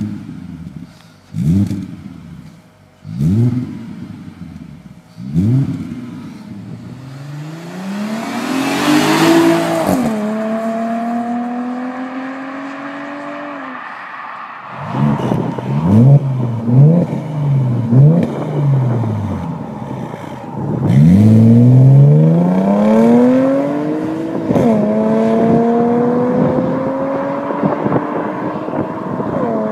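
Audi A5 3.2 V6 with an aftermarket exhaust revving: four quick, sharp throttle blips, then a long rev climbing to a peak and easing off into a steady run. After a cut, the same model with a resonator-delete exhaust revs and pulls hard through the gears, each rising note ended by a shift, then runs on at a steady note.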